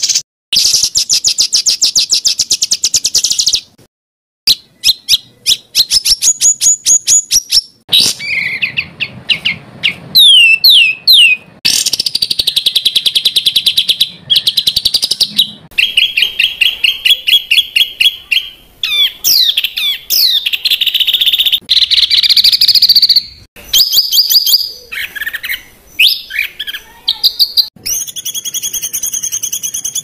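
Songbird masteran recording: loud, high-pitched, fast and varied song made of dense rapid-fire trills ('tembakan rapat') alternating with quick whistled slurs and sweeps, in bursts of a second or two separated by short gaps. It is the kind of recording played to caged songbirds such as murai batu to teach them song.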